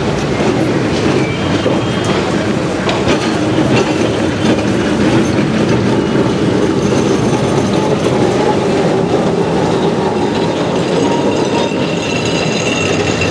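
Kolkata tram rolling along the curved track of a turning circle, its steel wheels rumbling and clattering on the rails, with thin high wheel squeals, most of them near the end as it passes close.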